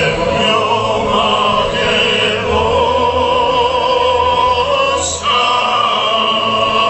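Music with a singing voice holding long, wavering notes, played loud over the rally's sound system, with a brief break about five seconds in.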